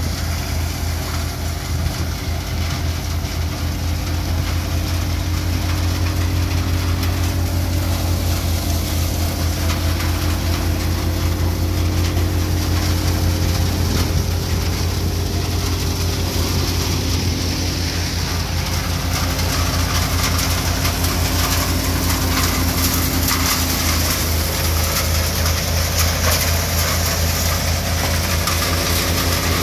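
A Chakradhar threshing machine, driven by a Force Orchard tractor, running steadily while threshing dry bean plants: the tractor engine's low, even hum under the noise of the thresher.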